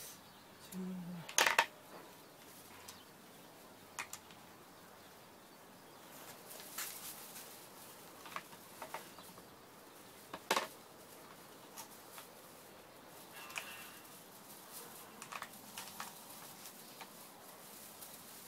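Sparse light metallic clicks and clinks from tools or small engine parts being handled, over a quiet background. The sharpest come about a second and a half in and again about ten and a half seconds in.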